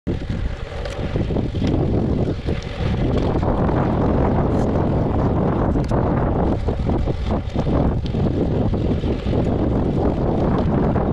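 Wind buffeting the microphone of a camera riding on a moving road bicycle: a loud, steady rush, heaviest in the low end.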